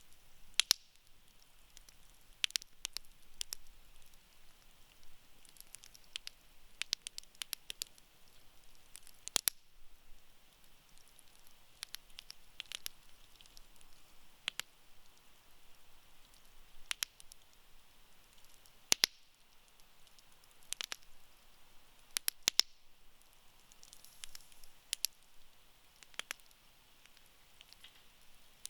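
Wood burning in a campfire, crackling with irregular sharp pops and snaps over a faint hiss; a few pops stand out louder, about a second in, near 9 seconds, near 19 seconds and around 22 seconds.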